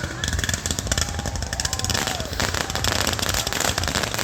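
Fireworks going off in a rapid, continuous string of crackling pops.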